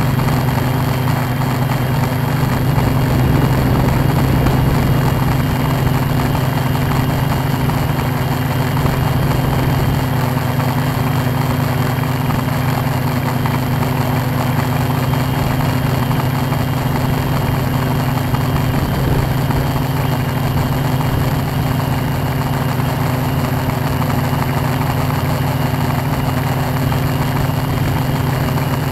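Tarot 680 Pro hexacopter's electric motors and propellers running steadily: an even, unchanging hum in flight.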